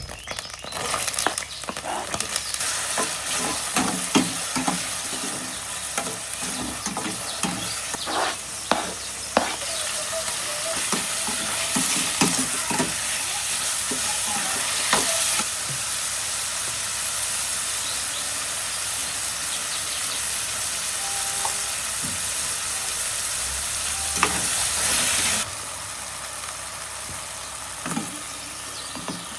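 Food frying and sizzling in a hot pan, with a utensil knocking and scraping as it is stirred. The sizzle drops off sharply near the end.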